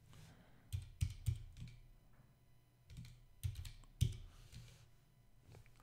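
Faint computer-keyboard keystrokes typing in a number, in two short clusters about a second in and about three and a half seconds in.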